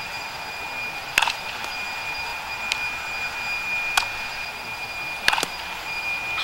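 Sharp cracks of a softball off a bat and into leather gloves during fielding drills, about five of them: the loudest about a second in, and a close pair near the end. Under them runs a steady hiss with a thin high tone.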